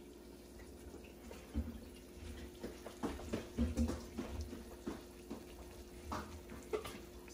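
Water splashing at a kitchen sink, with irregular knocks and clatters of kitchenware being handled.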